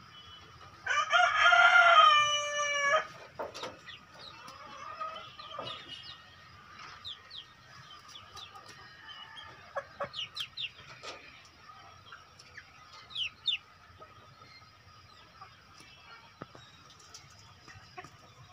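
Native kampung rooster crowing once, a call about two seconds long beginning about a second in. Afterwards hens cluck and give short scattered calls.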